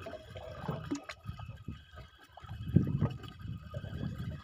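Sea water lapping and sloshing against the side of a small wooden boat, in irregular surges with a few light knocks, growing louder about two and a half seconds in.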